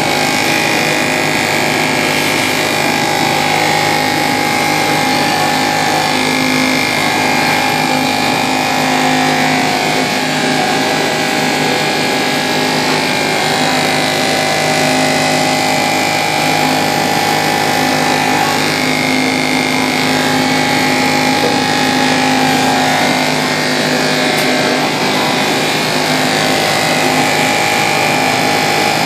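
Small 12-volt DC water pump of an automatic egg washer running steadily, a constant hum with a few held tones under a hiss of water jets spraying over the brush rollers.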